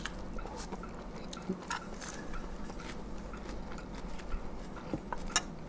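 Close-up chewing of spicy fried-egg salad, with a few light clicks and crackles scattered through.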